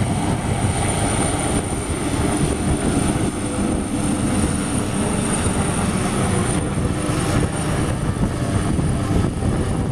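AgustaWestland AW139 twin-turbine helicopter taking off and climbing away: steady, loud rotor and turbine noise with a thin high whine running over it.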